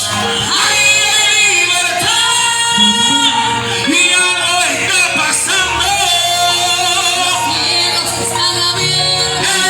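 Live Spanish-language worship music with singing over a band, echoing as in a large hall.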